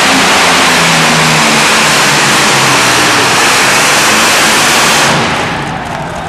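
Multi-engine modified pulling tractor at full throttle, dragging a weight sled down a dirt track, very loud and steady. About five seconds in the engines drop off sharply at the end of the pull, leaving crowd cheering.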